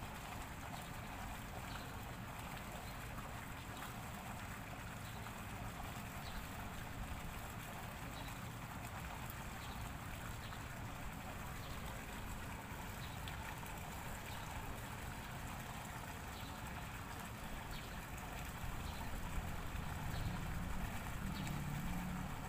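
Steady outdoor background noise beside a fish pond, with a water-like trickle and faint high ticks about once a second. A low rumble grows over the last few seconds.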